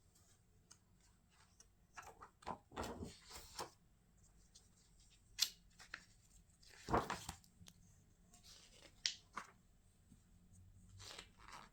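Packaging rustling and crinkling as it is handled and opened, in several short bursts with quiet gaps between.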